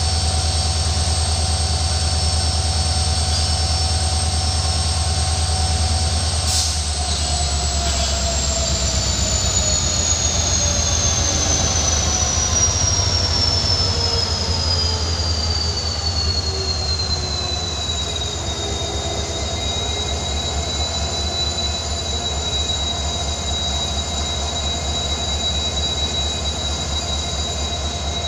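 Diesel locomotive running with a steady, pulsing low rumble and a high whine that slides slowly down in pitch for about ten seconds, then holds steady. A single sharp click sounds about six seconds in.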